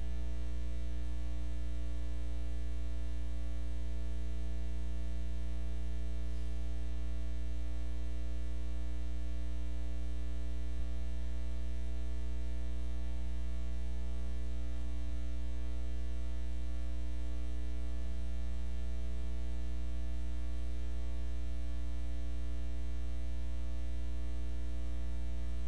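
Steady electrical mains hum: a low, unchanging buzz with a ladder of overtones, and no other sound except a faint tick about eleven seconds in.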